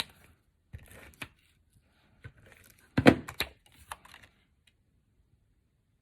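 Scattered light clicks and taps of cardstock being handled and stuck down with a tape adhesive runner, with the loudest cluster about three seconds in.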